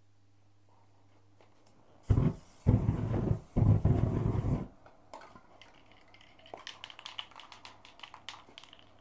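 A hand-held flame blasted over the wet spray paint: a loud rushing hiss in three bursts with short gaps, heating the fresh paint. It is followed by a run of light, rattling clicks.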